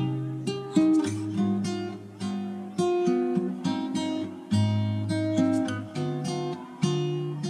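Background music: an acoustic guitar playing plucked and strummed chords, a new chord about once a second, each ringing and fading.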